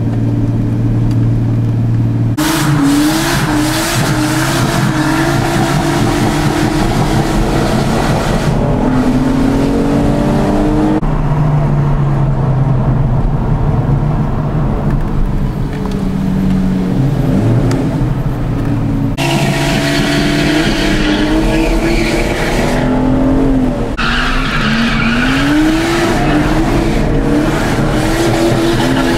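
Cars driven hard, heard from inside a following car: the engine revs up and down again and again with gear changes and throttle lifts, over tyre squeal from cars sliding sideways. The sound jumps abruptly several times.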